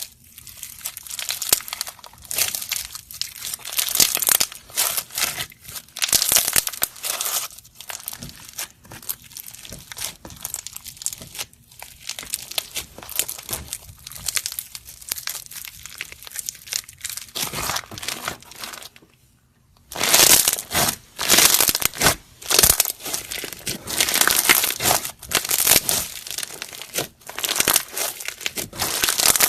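Slime being squeezed and kneaded by hand, making irregular crackling, squishing sounds. It stops briefly about two-thirds of the way through, then comes back louder.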